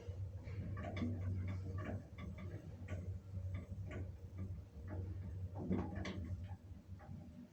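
A run of irregular short ticks and clicks over a steady low hum.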